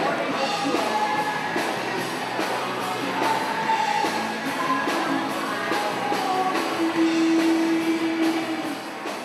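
Background music: a rock song with guitar and a steady drum beat, beginning to fade out near the end.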